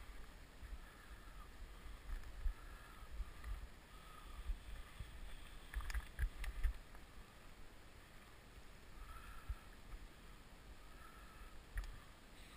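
Gusty low rumble of wind and handling on a head-worn camera's microphone, with a cluster of sharp knocks about halfway through and another near the end. Faint short tones recur every second or two above it.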